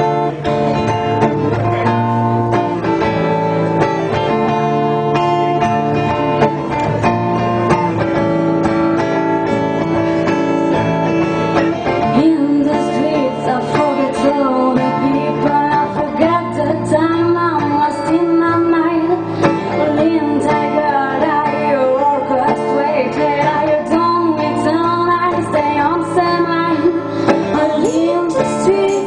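Band playing an instrumental opening led by guitars, with held chords at first and a wavering melody line joining about twelve seconds in.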